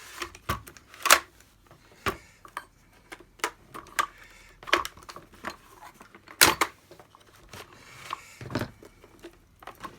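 Plastic parts of a Dyson DC50 vacuum cleaner being handled and worked at by hand: irregular clicks, taps and knocks, the loudest about a second in and again about six and a half seconds in.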